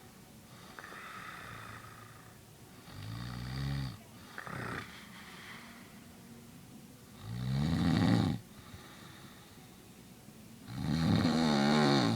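A sleeping man snoring: three rough, pitched snores about three and a half seconds apart, each lasting about a second, the last two the loudest, with softer breathing between them.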